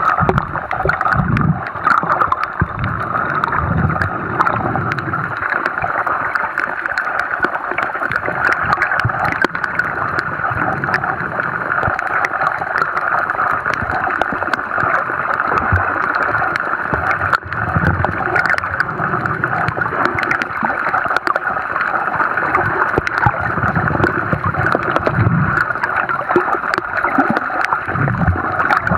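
Underwater noise picked up by a camera in its housing: a steady muffled rush of water with many small crackling clicks and low rumbles every few seconds.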